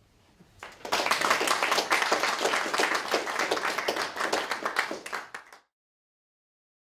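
Audience applauding: a crowd's clapping swells in about a second in and cuts off abruptly about five and a half seconds in.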